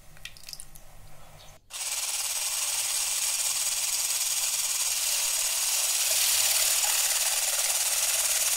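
Electric hand blender with a balloon whisk attachment running steadily, whipping egg whites in a plastic jug. It starts abruptly about two seconds in, after a few faint ticks of the whites being poured.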